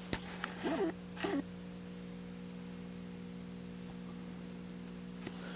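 Steady low electrical hum, with its evenly spaced overtones, in a quiet small room. A couple of brief breathy vocal sounds come in the first second and a half.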